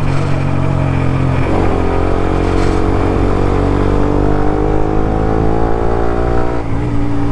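Suzuki GSX-R150's single-cylinder engine running through a Prospeed Black CNC full-system exhaust while riding. The engine note climbs steadily under acceleration, with a brief dip about a second and a half in and a drop near the end.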